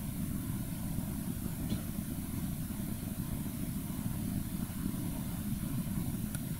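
A steady low rumble with a faint high hiss over it and no speech. Two faint ticks come through, one about two seconds in and one near the end.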